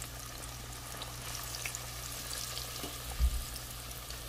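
Whole potatoes sizzling as they fry in hot oil in a pot, with scattered small pops and crackles. A single dull low thump about three seconds in.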